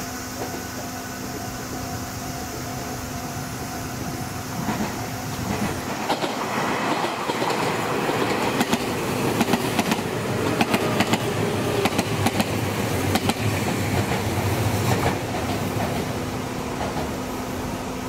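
Meitetsu Komaki Line electric commuter train passing close by. The wheels clatter rhythmically over the rail joints, loudest in the middle of the pass, then the sound fades away.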